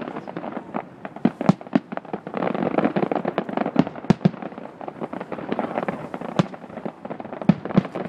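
Aerial fireworks display: an irregular run of sharp shell bursts and bangs, with a dense stretch of rapid crackling from about two seconds in until past four seconds.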